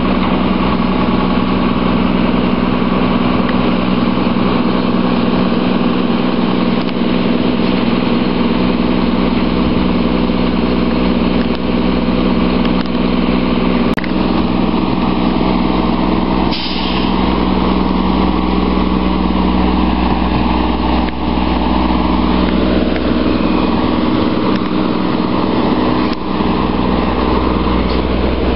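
Diesel engine of a Volvo WXLL front-load garbage truck running steadily at idle, a loud even drone.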